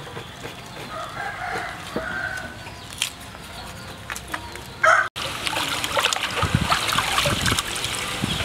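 Chickens clucking and a rooster crowing, with a knife scraping the hide of a cow's foot. About five seconds in, this changes to water splashing and sloshing as chunks of raw beef are washed by hand in a basin.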